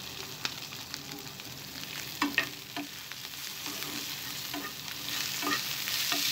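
Chopped onions going into hot oil in a non-stick frying pan and sizzling as they are stirred with a spoon, with scattered light knocks and scrapes of the spoon. The sizzle grows louder near the end.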